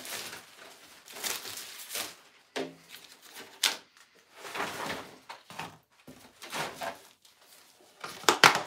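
Irregular rustling and scraping of cardboard packaging as a snowboard is slid out of its shipping box and turned over by hand, with a couple of sharp knocks, one about halfway through and a louder one near the end.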